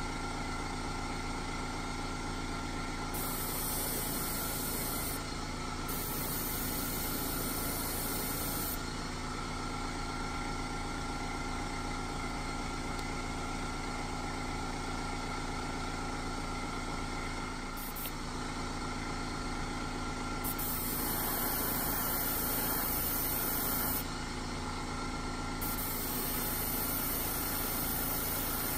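Small airbrush compressor running with a steady, unchanging hum.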